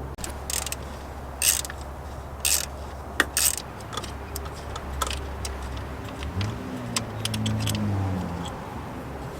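Scattered sharp clicks and rattles of hand tools and plastic as an ignition coil pack's electrical connector is unplugged and its hold-down bolt undone, over a steady low hum. About six seconds in comes a short hum with a wavering pitch, lasting about two seconds.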